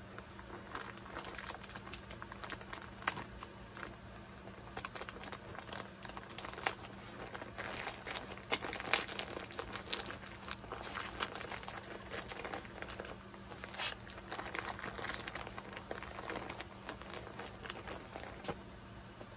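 A plastic bag crinkling as it is pressed and smoothed flat by hand, in irregular crackles that are busiest around the middle.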